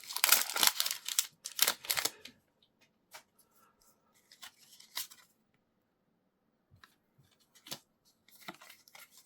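Foil booster pack wrapper crinkling as it is torn open for about two seconds, followed by scattered soft clicks and taps of the cards being handled.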